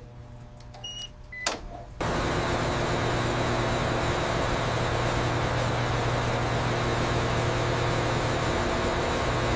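Steady machinery hum with a strong low drone and a hiss over it, cutting in abruptly about two seconds in and holding level. Before it there is only a faint low hum with a couple of soft short beeps.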